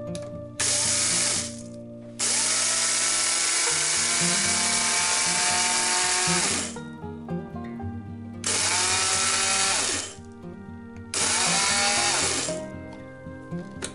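AEG personal blender grinding roasted rice grains into powder, run in four bursts, the longest about four seconds. After each burst the motor winds down in a falling whine. Background music plays throughout.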